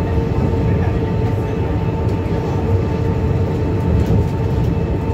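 VAL208 automated metro train running at speed on its rubber tyres along a concrete guideway, heard from inside the car: a steady rumble with a constant whine over it.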